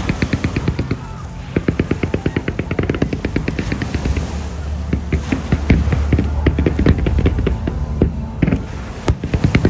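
Aerial fireworks going off in quick succession: dense crackling and popping with sharper bangs near the end, and a low rumble midway.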